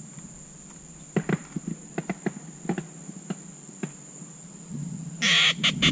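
A steady high-pitched insect drone, with scattered light clicks through the middle and a short, louder burst of rustling noise near the end.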